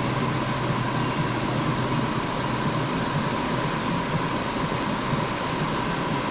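Freight train tank cars rolling past at a level crossing: a steady rolling rumble and rail noise from the wheels, with a steady high tone held over it.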